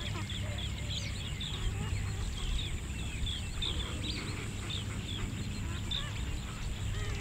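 A flock of waterfowl calling: many short, overlapping calls, over a steady low hum.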